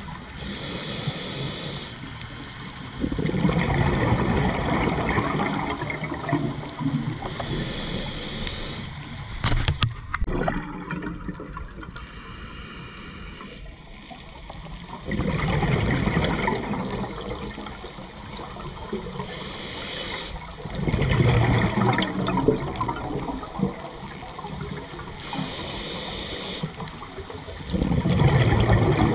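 Scuba regulator breathing underwater: a short hiss on each inhalation, then a louder rush of exhaust bubbles on each exhalation, repeating slowly and regularly about every six seconds.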